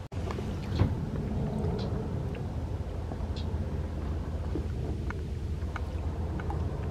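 Airboat engine idling: a steady low rumble, with a few faint ticks over it.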